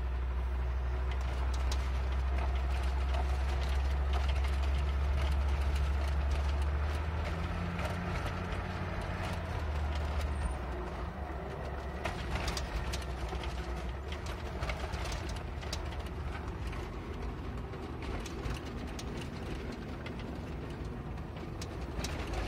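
Driving noise heard from inside a moving car's cabin: a steady low engine and road rumble, heavier for the first several seconds and then easing, with scattered clicks and rattles over the road surface.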